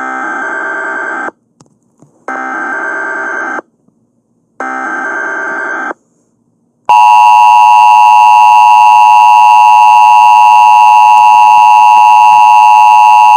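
Emergency Alert System tones: three short buzzy bursts of the digital header, about a second apart, then about seven seconds in a long, steady, loud two-tone attention signal begins.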